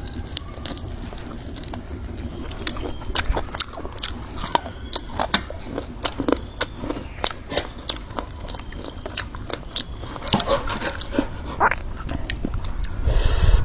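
Irregular clicks and knocks of utensils working the food while papaya salad is being made, a few a second and uneven in strength.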